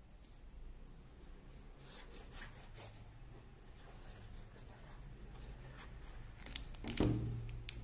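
Faint rustling and rubbing of craft paper being handled, with a dull thump near the end followed closely by a sharp click.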